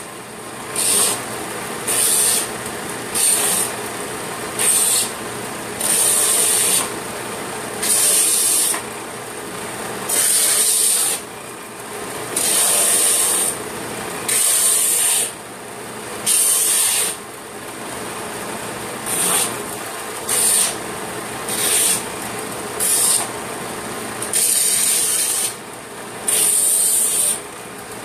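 Harbor Freight bench belt sander running steadily while a piece of wood is pressed against the moving belt again and again: about sixteen short sanding passes, each a loud hiss lasting from a fraction of a second to about a second.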